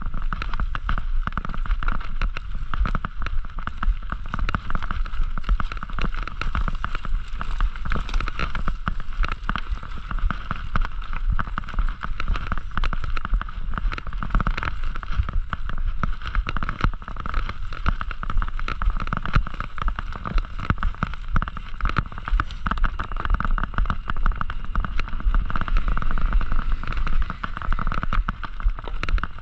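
Mountain bike ridden over a rough cross-country trail: continuous rattling and knocking of the bike over bumps above a steady low rumble of tyres and ground.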